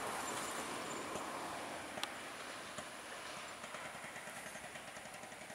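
Diesel train with an MTU-Ikegai 12V652TD11 engine running away along the track, its sound slowly fading, with a few sharp clicks.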